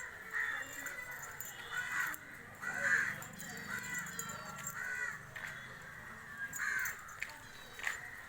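A crow cawing repeatedly, short harsh calls coming roughly once a second.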